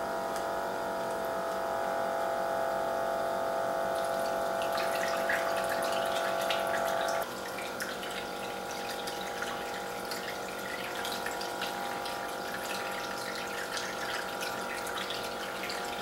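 Small homemade 7.2-volt DC water pump of a tabletop fountain running with a steady, several-toned whine. About four seconds in, water starts trickling and splashing as it spills over the tiers into the basin. The whine drops in loudness about seven seconds in.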